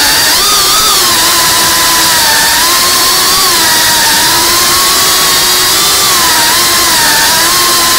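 Small FPV quadcopter's electric motors and propellers buzzing steadily, the pitch wavering up and down as the throttle changes, over a constant hiss of air from the props.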